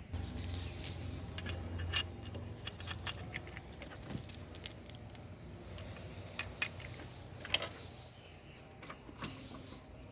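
Metal tools and parts clinking and tapping during hands-on work under a car: irregular sharp metallic clicks, the loudest ones about two seconds in and about three-quarters of the way through.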